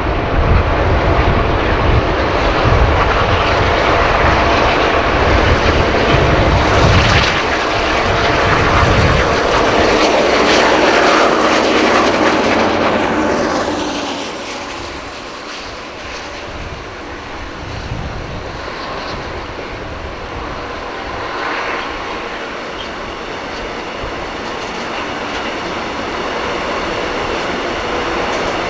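Class 241 'Ludmilla' diesel locomotives under full power hauling a heavy freight train, loud and passing by with a falling pitch about halfway through. After they pass, the engine sound drops and the loaded wagons roll on.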